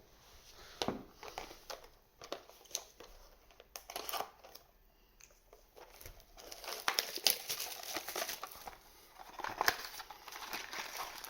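Plastic and foil wrapping of trading card booster packs crinkling and tearing as they are opened, in irregular crackles that grow busier and louder about halfway through.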